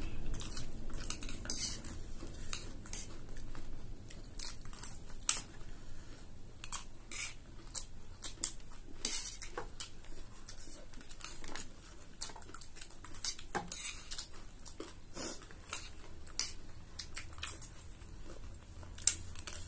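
Small metal spoon and fork clicking and scraping against ceramic plates at irregular intervals, with chewing of mouthfuls of chatpate.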